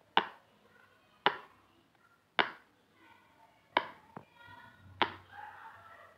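Bubbles of a silicone pop it fidget toy pressed in by fingers, giving about six sharp pops roughly a second apart.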